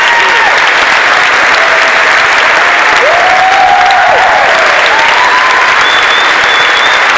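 Large audience applauding steadily, with scattered cheers and whoops rising over the clapping about halfway through and a few short whistles near the end.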